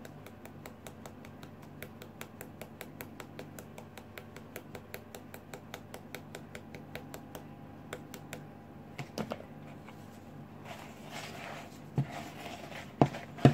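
A flour sieve being tapped quickly and evenly, about six light taps a second, to shake plain flour through into the mixing bowl. Over the last few seconds a few knocks and scraping as the sieve is set down and a wooden spoon stirs the stiffening dough.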